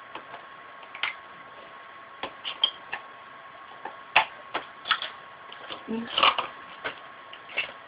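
Irregular light clicks and taps of a makeup brush and eyeshadow palette being handled, with a couple of sharper knocks, over a faint steady high hum.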